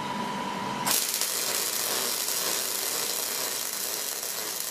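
MIG welding arc struck about a second in, then crackling and sizzling steadily as the bead is laid.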